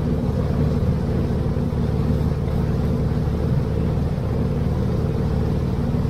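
Small tour boat's engine running at a steady speed, an even low hum that holds without change.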